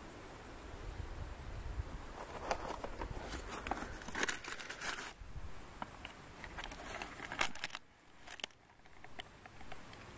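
Dry leaves crinkling and crackling as they are handled, with scattered sharp clicks and a louder snap about seven and a half seconds in. A low wind rumble on the microphone through the first half.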